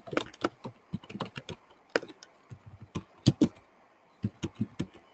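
Typing on a computer keyboard: irregular keystrokes in short runs, with a brief pause a little past the middle.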